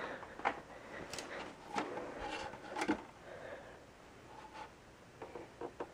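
Faint handling noise as the opened oscilloscope is handled: scattered light clicks and soft rubbing against its case and cables.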